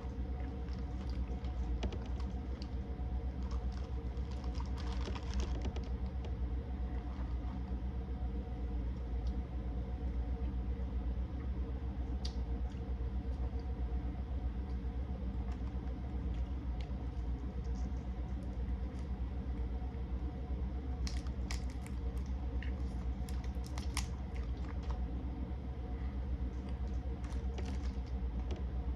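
Scattered clicks and cracks of seafood boil shells being broken and eaten, over a steady low hum, with a cluster of sharper cracks about three-quarters of the way through.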